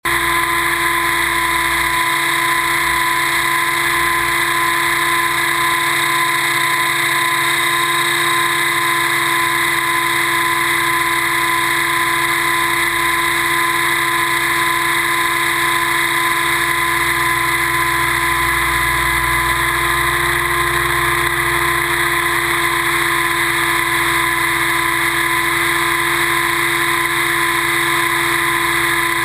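Radio-controlled helicopter's powertrain and rotor heard close up from on board, a loud steady whine that holds one pitch throughout.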